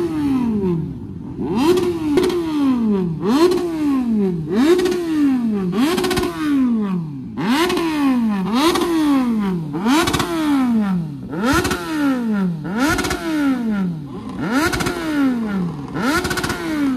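Green Kawasaki naked motorcycle's engine being blipped repeatedly while it stands still. The revs jump up sharply and fall back over a dozen times, about once every second and a quarter.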